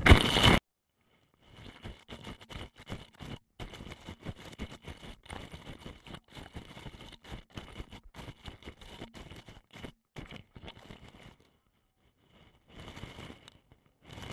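A shout cut off abruptly, then irregular rustling knocks and thumps of people running through dry grass while the camera is carried. These stop about 11 seconds in, and two short bursts follow near the end.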